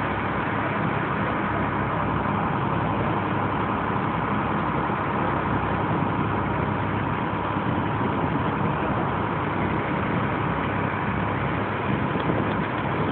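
Glass-bottom tour boat's engine running steadily while under way, an even hum under a constant hiss of water and wind.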